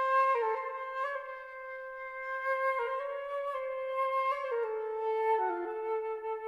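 Unaccompanied flute playing a slow, single melodic line of held notes that drifts gradually lower, settling on a long sustained note near the end.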